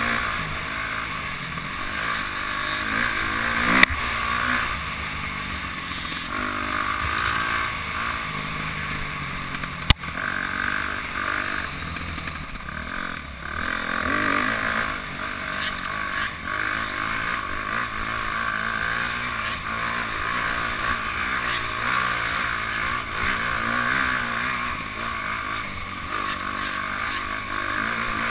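Dirt bike engine revving up and down as the bike is ridden, heard from a camera mounted on the bike. Two sharp knocks come through, about four and ten seconds in.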